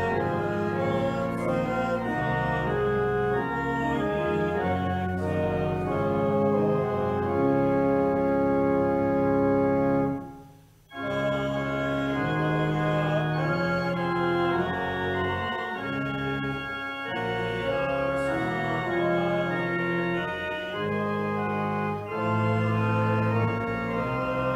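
Church organ playing sustained chords, with a brief break about ten and a half seconds in before it resumes.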